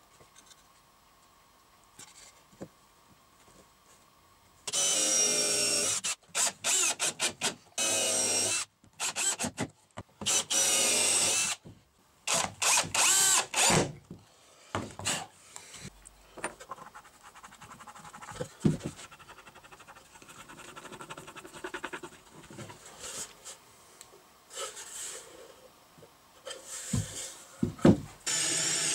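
Electric drill boring countersunk holes into plywood in a string of short trigger bursts, the motor whining up and down, from about five seconds in until about fourteen seconds. After that come light knocks and rubbing as the wooden pieces are handled, and near the end a power tool starts up and runs steadily.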